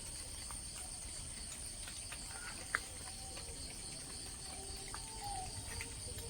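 Insect chorus, a steady high-pitched drone, with one faint click about two and a half seconds in.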